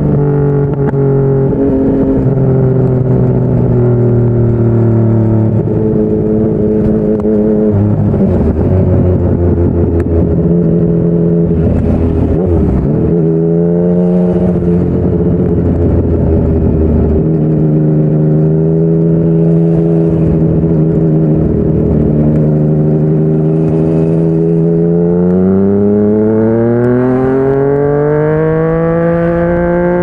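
Yamaha MT-09's inline three-cylinder engine running through a Yoshimura R55 slip-on exhaust while riding. The engine note holds steady with several steps in pitch, dips sharply and comes back up about halfway through, then climbs steadily over the last few seconds as the bike accelerates.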